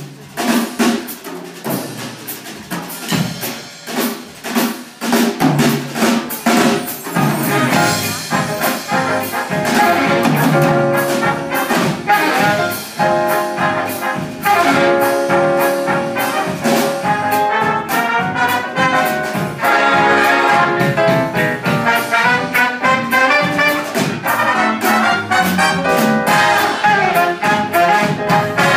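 Big band playing jazz live: saxophone, trombone and trumpet sections over a drum kit keeping a steady beat. The horns come in with held chords about eight seconds in and carry on from there.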